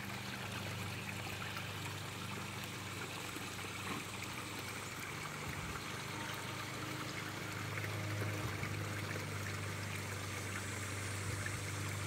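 Backyard pond waterfalls spilling over stone ledges into the pools, a steady trickling and splashing. Underneath, a lawn mower engine drones steadily, a little louder from about eight seconds in.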